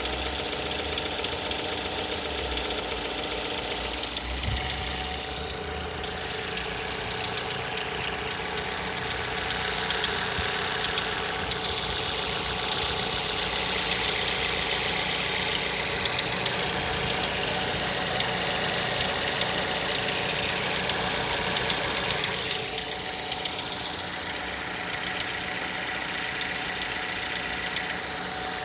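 Mazda 6 GH 2-litre four-cylinder engine idling with a steady, rapid knocking. The knock is heard only on a cold engine during warm-up at 800–1000 rpm and goes away once the coolant temperature starts to rise; its cause is unknown to the owner.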